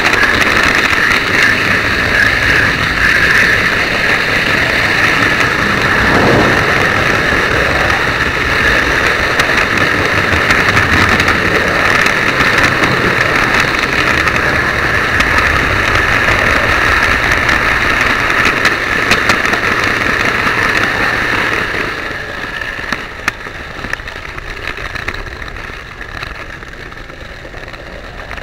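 Model train running on its track, heard close from a camera riding on it: a steady motor whine and wheel rumble on the rails. It drops in level about 22 seconds in, with a few sharp clicks after that.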